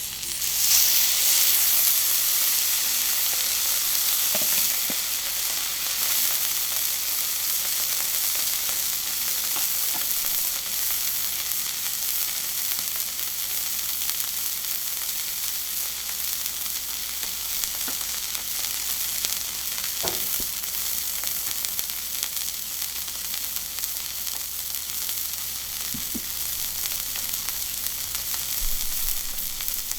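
Wagyu steak sizzling on a dry, unoiled iron griddle. The sizzle starts suddenly, as when meat is laid on the hot plate, and then holds steady, with a few faint knocks.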